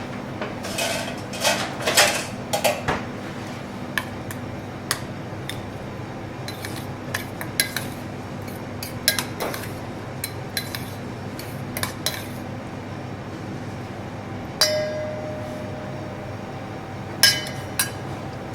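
Dishes and utensils clinking and clattering on a kitchen counter: a run of knocks and clinks, then scattered single ones. About fifteen seconds in, one strike rings on, and there is another sharp clink near the end, all over a steady background hum.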